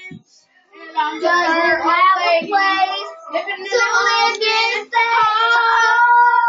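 Child singing loudly with a wavering, pop-style voice, starting about a second in and ending on a long held note.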